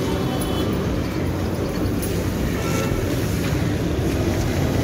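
Steady low outdoor rumble, without distinct events.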